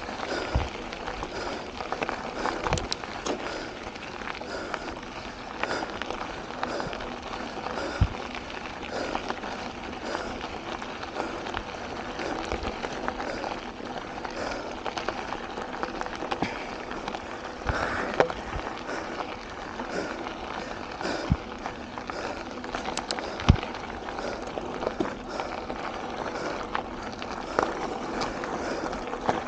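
Mountain bike rolling fast down a gravel trail: a steady crunch and rattle of tyres on loose gravel, with frequent small clicks and knocks and a few sharper thumps as the bike hits bumps.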